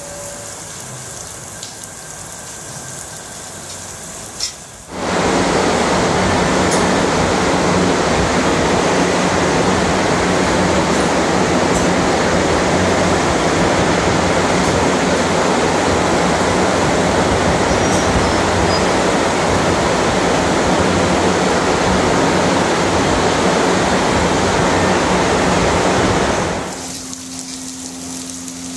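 Dairy barn cooling system of overhead sprinklers and large fans starting up about five seconds in: a loud, steady rush with a low hum underneath, which drops away shortly before the end. Before it, a softer hiss of water spray and dripping.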